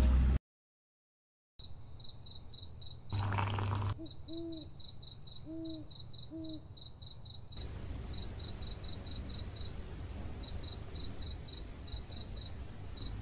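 Crickets chirping in an even rhythm, about three to four chirps a second, after a moment of silence. A short whooshing noise comes about three seconds in, then three short low calls over the next few seconds.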